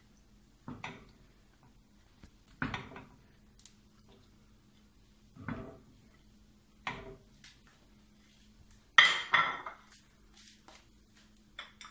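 Peeled potato chunks are dropped one at a time from a ceramic dish into a metal cooking pot full of cut tomatoes, making about five separate knocks and clinks. The loudest comes near the end and rings briefly.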